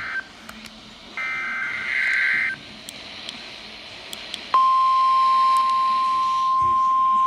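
Emergency Alert System SAME header: a burst of buzzing digital data tones lasting about a second and a half, then a pause, then about four and a half seconds in the single steady 1050 Hz attention tone of NOAA Weather Radio starts abruptly and holds.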